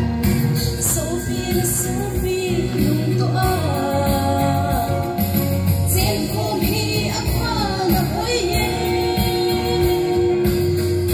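A singer performing a song live over backing music, amplified through loudspeakers.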